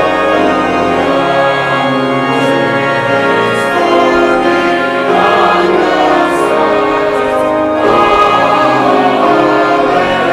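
Church choir singing a choral anthem in sustained, full harmony with piano accompaniment.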